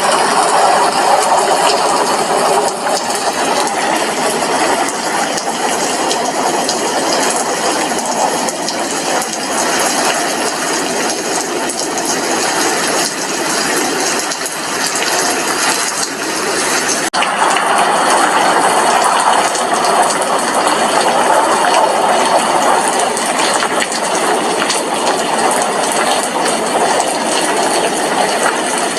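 Steady rain, a dense run of raindrops striking a glass window. It dips briefly about seventeen seconds in, then carries on.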